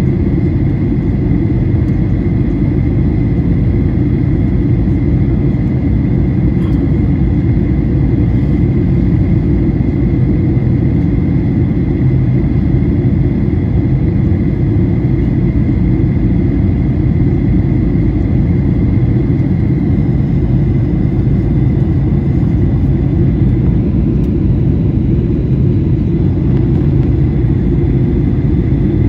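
Steady cabin drone of a Boeing 737-900ER heard from inside the passenger cabin: a low, even rumble of engines and airflow with a thin, steady whine above it.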